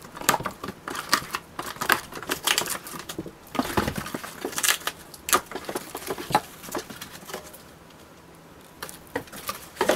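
Cardboard box being unpacked by hand: flaps and cardboard packing sheets rustling, scraping and knocking in a quick, irregular run of crackles. The handling goes quieter for a second or so near the end, then picks up again.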